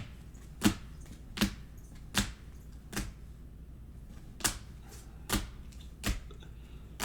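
Trading cards being set down one at a time: a series of sharp taps, about one every three-quarters of a second, with a short pause midway.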